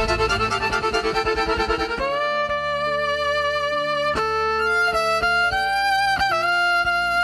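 Background music: a busy, pulsing passage that changes about two seconds in to long held notes with sliding pitches.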